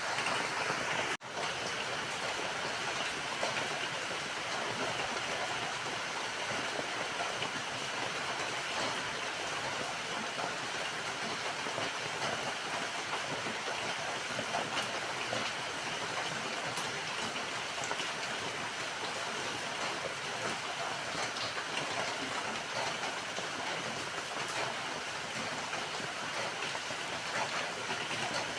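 Steady, dense rainfall: an even hiss of many drops with a fine crackle of individual drops hitting a surface. The sound cuts out for an instant about a second in, then carries on unchanged.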